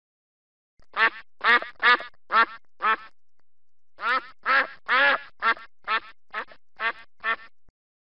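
A duck quacking: five short quacks about twice a second, a pause of about a second, then eight more at the same pace.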